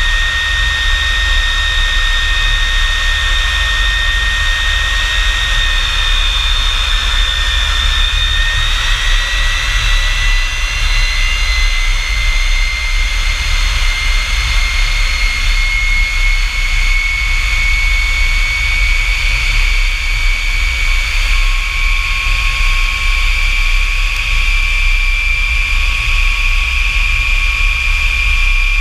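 North American F-100 Super Sabre's J57 turbojet running steadily, a loud low rumble under a high turbine whine. The whine rises slowly in pitch from about eight seconds in, and a second, lower whine joins about twenty seconds in.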